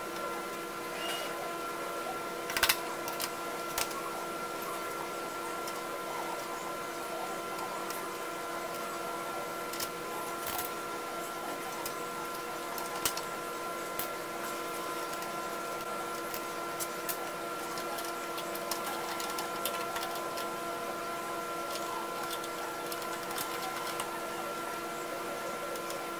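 A steady machine hum made of several held tones, with scattered metallic clicks and clinks of hand tools working on a vine trimmer and picked up from a workbench; the loudest clank comes about two and a half seconds in.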